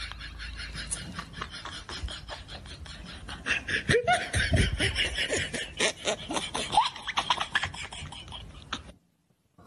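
Laughter: a fast run of short vocal pulses that gets louder about three and a half seconds in and cuts off abruptly near the end.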